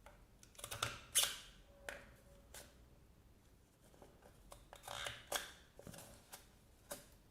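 MUJI stapleless stapler pressed through sheets of paper, clicking and crunching as it cuts and folds the paper, with paper rustling. This comes in two bursts, about a second in (the loudest) and again about five seconds in, with a few lighter clicks between.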